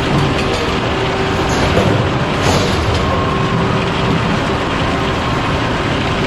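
Sawmill machinery running, a circular head saw among it: a loud, steady din with a constant whine. A brief knock about two and a half seconds in.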